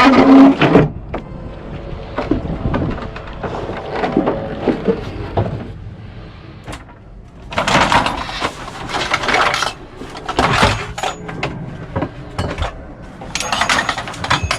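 Gear and hardware being handled and shifted, clattering and knocking: a loud knock right at the start, then scattered clunks with two busier spells of rattling, one about halfway through and one near the end.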